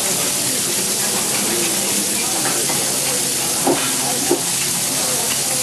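Beef steaks and shimeji mushrooms sizzling on a hot teppanyaki griddle: a steady, even frying hiss, with two brief louder blips a little past the middle.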